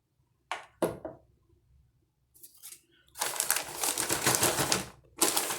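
Two sharp clicks of plastic toilet-repair parts knocking together, then a plastic bag crinkling and rustling for a couple of seconds as parts are handled inside it, starting again just before the end.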